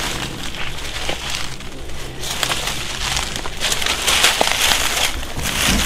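Footsteps crunching and rustling through dry fallen leaves and brush, growing louder about two seconds in.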